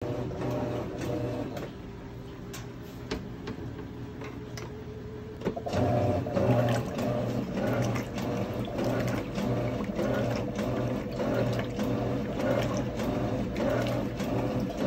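Electrolux LTR12 top-loading washing machine agitating a load of clothes in water: the motor and agitator drive run with a rhythmic churning and sloshing, which gets louder about five and a half seconds in.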